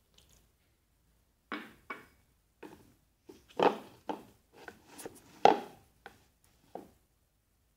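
Irregular sharp knocks and taps, about a dozen over five seconds, each dying away quickly, the loudest two near the middle.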